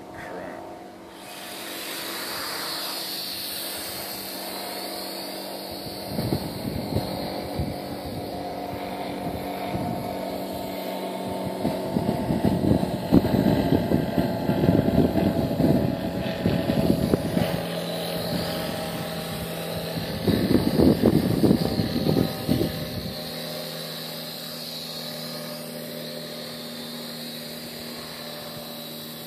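WLtoys V959 toy quadcopter's small electric motors and propellers whining steadily in flight. Gusts of wind buffet the microphone through the middle stretch.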